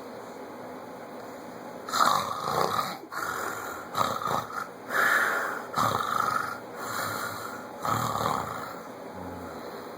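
Snoring: after about two seconds of quiet, a run of short, loud snores comes roughly once a second and stops near the end.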